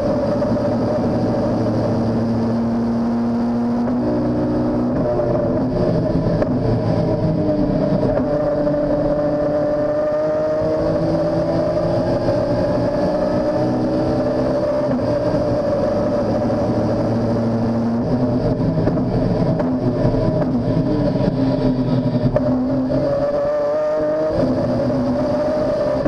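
Race-modified BMW S54 straight-six heard from inside the stripped race car's cabin, running hard at high revs. Its pitch dips and climbs again a few seconds in and once more near the end as the car brakes for corners and accelerates out, over steady road and tyre noise.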